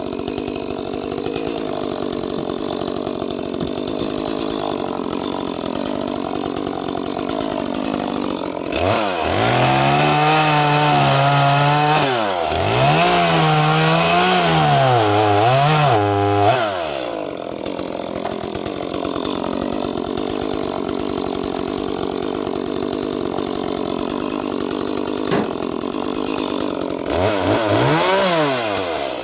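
Small 30cc Echo two-stroke chainsaw idling, then opened to full throttle about nine seconds in and cutting wood for about seven seconds, its pitch dipping and wavering under load, before dropping back to idle. A brief rev comes near the end.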